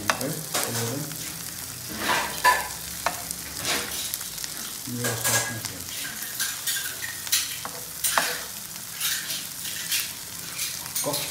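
Paneer slices shallow-frying in oil in a nonstick pan, sizzling steadily. Over the sizzle come repeated short scrapes and taps of a metal spoon against the pan as the pieces are turned.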